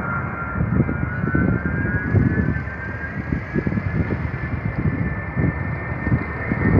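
Ilyushin Il-76 four-engine jet transport flying overhead: a steady jet rumble with a high turbine whine that slowly slides upward in pitch.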